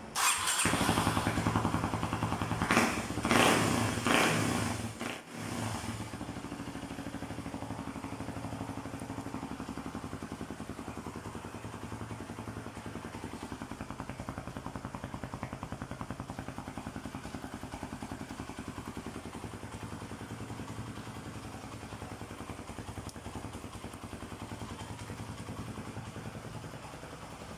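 Kawasaki D-Tracker 250's single-cylinder four-stroke engine running through an aftermarket DELTA muffler. The throttle is blipped a few times in the first five seconds, then the engine settles to a steady idle.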